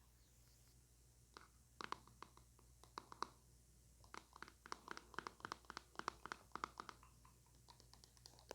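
Close-miked ASMR trigger sounds: a fast, irregular run of soft clicks and scratches, several a second, starting about a second and a half in and thinning out near the end.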